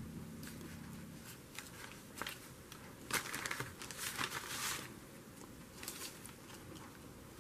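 Paper rustling and crinkling in short, faint bursts, the strongest two coming about three and four seconds in.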